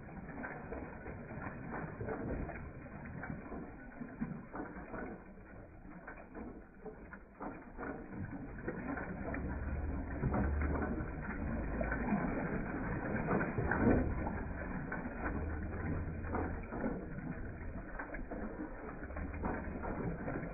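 Engine-driven pump jack working a cast-iron water pump: a steady mechanical clatter of clicks and knocks from the gearing and pump linkage, with low thuds recurring in the second half, while water pours from the spout.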